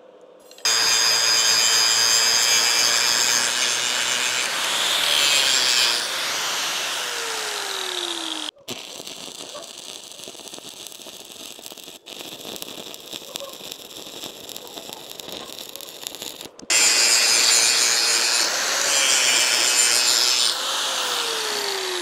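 Stick welder arc crackling and hissing as a 7018 rod lays a cap pass over a porous TIG root weld on a steel hydraulic cylinder. The sound is loud, drops to a quieter stretch a few seconds in, and comes back loud with an abrupt jump in level.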